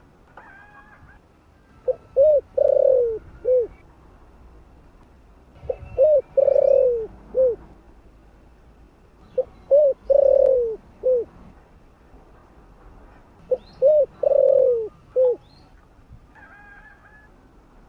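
Spotted dove cooing: four phrases about four seconds apart, each two short coos, a longer falling coo and a short final coo.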